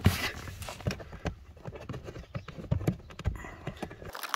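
Irregular clicks and knocks of hands handling the plastic cabin-filter cover and surrounding trim in an Audi A6 C7, over a low hum that cuts off near the end.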